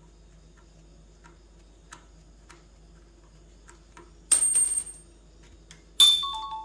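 Small metal pieces clinking twice with a brief ring, about four seconds in and again near the end, over faint light ticks and a low steady hum.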